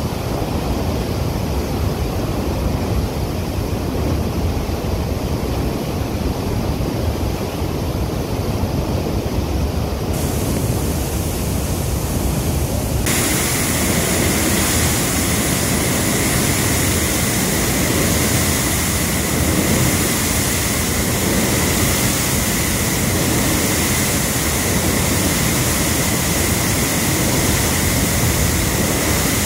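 Water rushing out through the open sluice gate of a flooded reservoir: a loud, steady rushing noise. About ten seconds in, and again about thirteen seconds in, it turns brighter and hissier, then holds steady.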